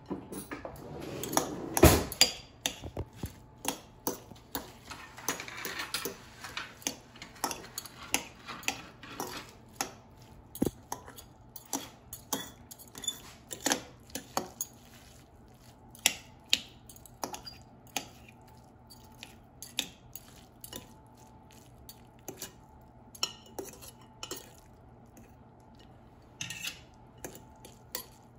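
Metal forks scraping and clinking against a glass mixing bowl as baked spaghetti squash is pulled apart into strands: irregular clicks and taps, with one louder knock about two seconds in.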